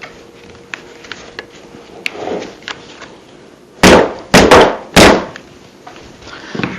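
Hard knocks and clacks of the pole saw's parts being handled: light clicks at first, then about four loud, sharp knocks in quick succession just past the middle.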